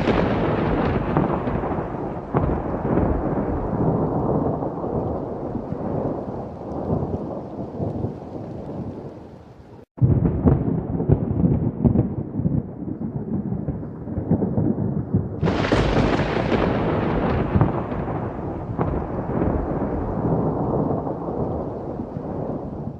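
Thunder in a rainstorm: a sharp clap just before the start rumbles away over several seconds, the sound drops out for an instant about ten seconds in, and a second clap about fifteen seconds in rolls on to the end, with rain throughout.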